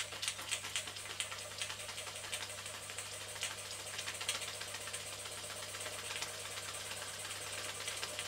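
Märklin toy steam donkey engine running, its single-acting cylinder and flywheel making a quick, steady mechanical clicking over a hiss.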